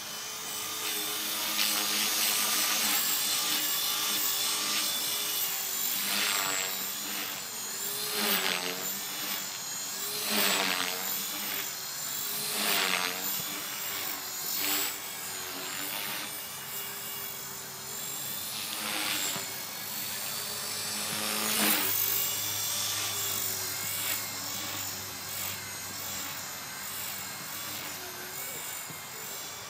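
HK-450 electric 450-size RC helicopter in flight: a steady whine of rotor and motor. It swells louder several times, with brief bends in pitch as it manoeuvres.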